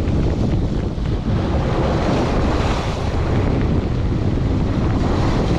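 Rough sea surf breaking and washing against a rocky shore, with wind buffeting the microphone.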